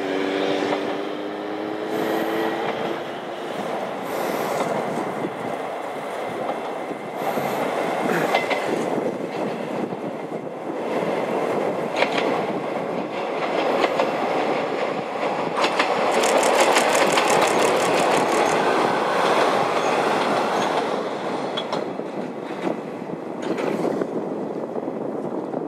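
Heisei Chikuhō Railway diesel railcar passing: a horn sounds for about three seconds at the start, then running noise with wheels clicking over the rail joints. The noise is loudest past the middle and fades away near the end.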